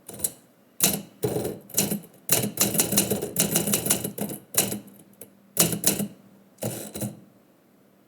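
Typewriter keys striking in irregular bursts of clicks, with a fast run of typing in the middle. The typing stops about seven seconds in.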